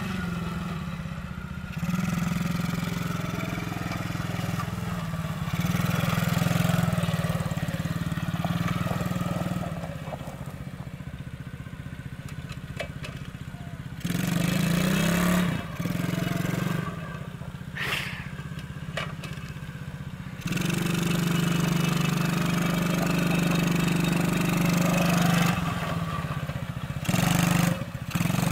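The small single-cylinder four-stroke engine of a Coolster ATV-3125XR-8U 125cc quad running steadily while it is ridden. It grows louder and quieter several times, with a couple of quieter stretches in the middle.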